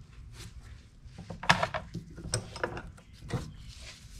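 A fuel filter canister held in a bench vise is worked loose with a wrench and pulled apart by hand: a run of sharp clicks and metallic knocks, the loudest about a second and a half in.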